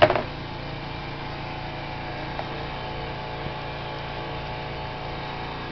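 Small gasoline engine of a Simoniz 2350 PSI pressure washer running at a steady speed.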